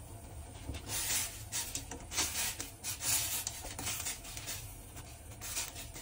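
Chopsticks turning chicken pieces in a stainless steel saucepan of water, scraping against the pot and stirring the water in several short bursts from about a second in, over a steady low hum.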